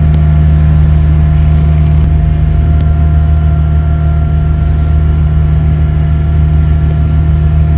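An engine running steadily at constant speed, a loud, even low drone with no change in pitch.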